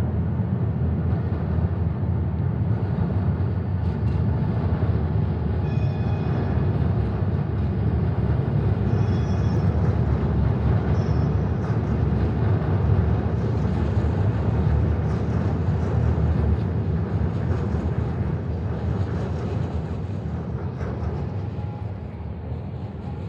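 City night ambience dominated by a steady low rumble, fading gradually near the end, with a few brief high-pitched tones about six to eleven seconds in.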